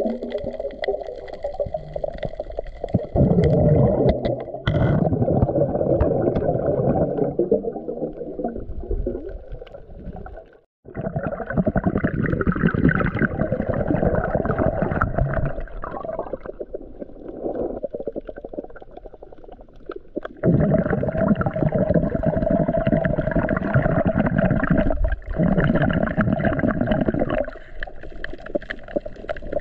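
Muffled underwater sound picked up by a submerged camera: a dense, low rushing and gurgling of water, with a steady hum in some stretches. The sound changes abruptly several times and drops out briefly about eleven seconds in.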